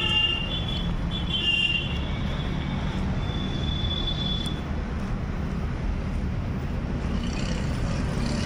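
Street traffic: a steady low rumble of passing vehicles, with a couple of brief high-pitched tones in the first half.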